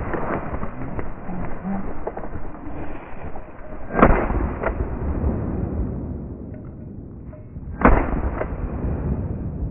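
A cock pheasant bursts up with a flurry of wingbeats, then two shotgun shots ring out about four seconds apart as the bird flies off through the trees.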